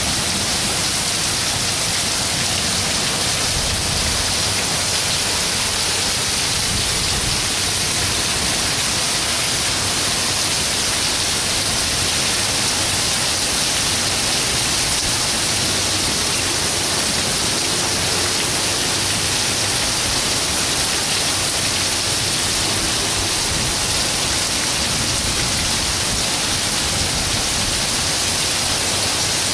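Heavy thunderstorm downpour: a steady, dense hiss of rain pouring onto pavement and parked cars.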